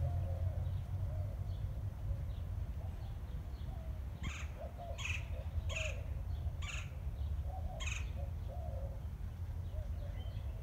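A bird giving five short, harsh calls about a second apart, starting about four seconds in, over a steady low rumble.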